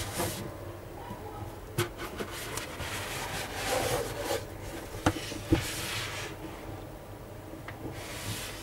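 Cardboard packaging of a headset box sliding and rubbing as it is handled and the outer sleeve is drawn off, with a few sharp knocks of the box along the way.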